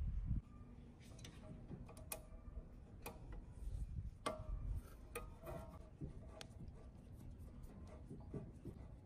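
Screwdriver working a small screw on the steel blade guard of a metal cut-off saw: scattered sharp metallic clicks and light ticks as the tool bit seats and turns in the screw head and knocks against the guard. A brief low rumble comes at the very start.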